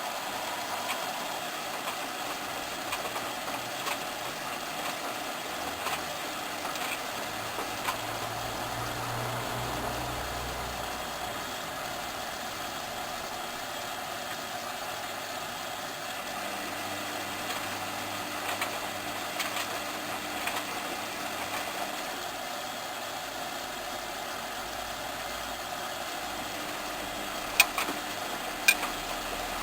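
Hoover Inter@ct washing machine running a wash, its drum motor (a replacement taken from a Candy Aliseè) turning in spells over a steady machine noise. Two sharp clicks come near the end, about a second apart.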